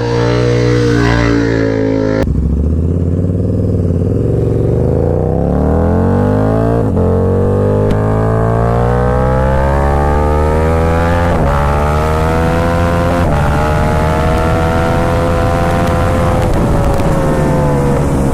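KTM 1290 Super Duke R's V-twin engine, fitted with an Austin Racing exhaust, accelerating hard through the gears: the pitch climbs, drops at each upshift about four times, then climbs again and holds high.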